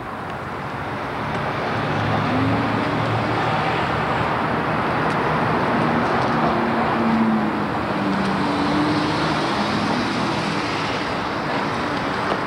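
Motor vehicle traffic on the street close by: a rush of engine and tyre noise that swells over the first couple of seconds, holds with a low engine hum, and eases a little near the end.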